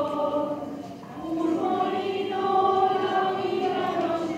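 A choir singing a slow hymn with long held notes, breaking off briefly about a second in before the next phrase.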